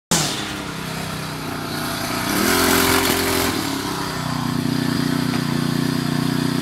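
Weed eater (string trimmer) small engine running. It revs up for about a second, starting a little over two seconds in, then drops back to a steady run.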